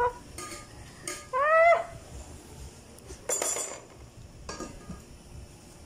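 A metal ladle and pot lid clink and scrape against cooking pots on a gas stove, in a few separate knocks. About a second and a half in, a short pitched squeal rises and then falls.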